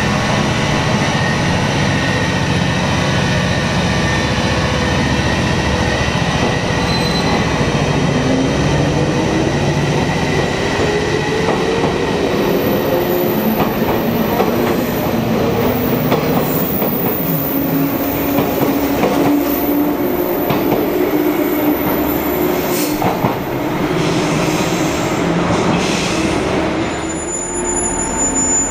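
JR 115-series electric train pulling out of a station: its motor whine rises in pitch as it accelerates, then its wheels clatter over the rail joints as the cars pass close by.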